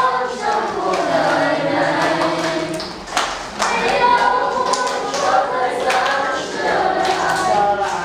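A class of students singing a song together as a group, with long held notes and a few hand claps.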